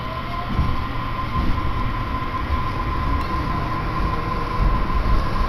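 Inside an electric train pulling away from a station: a low rumble from the running gear under a steady, high electric whine, growing slightly louder as the train gathers speed.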